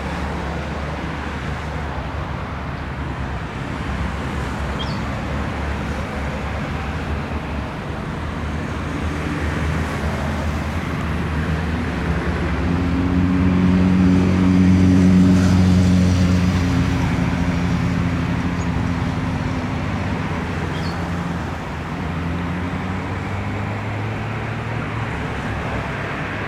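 Boeing 747-400 jet engines running at low power, a steady low hum that grows louder toward the middle and eases off again without changing pitch.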